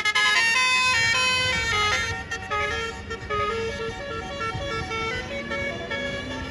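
A bus's basuri telolet horn playing a melody of quick stepped notes, loud for about the first two seconds and then softer as the tune goes on.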